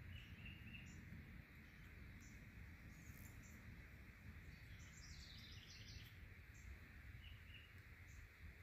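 Near silence: faint outdoor ambience with a few faint bird chirps, a short run of them about five seconds in.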